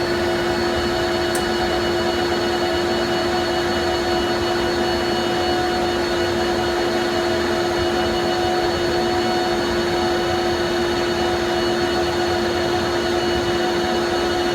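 Laser engraving machine running as it engraves an AR-15 lower receiver: a steady fan-like whir with a fixed pitched hum, and a single faint tick about a second and a half in.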